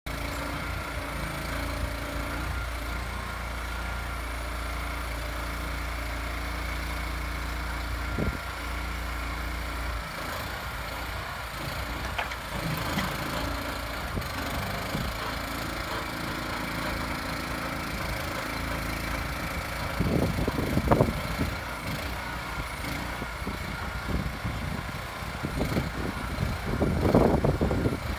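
Engine running steadily to power a trailer-mounted FARMA hydraulic log crane, with the hum of its hydraulics as the boom and grapple move. Wooden knocks and thumps come as a log is gripped and set onto the trailer's load, loudest about two-thirds of the way through and again near the end.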